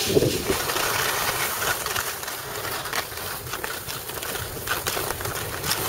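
Skis sliding and scraping over packed snow, with wind buffeting the microphone: a steady rushing noise with small scrapes through it.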